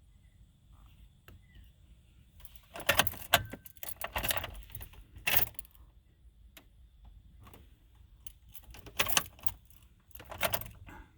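Car keys on a key ring jangling in several short bursts, the key held in the ignition's 'on' position.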